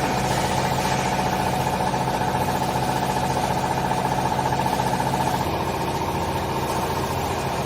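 Hydraulic baler's power unit running steadily: the electric motor and hydraulic pump hum with a fast, fluttering whine, easing slightly about five and a half seconds in.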